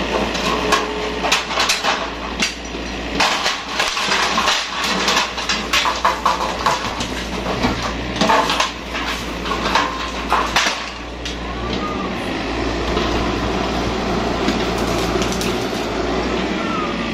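Yanmar mini excavator's diesel engine running while its bucket tears down a shed's wooden frame and roofing. For about the first ten seconds there are many clattering knocks and crashes of breaking timber and roof sheets. After that the engine runs on steadily with fewer knocks.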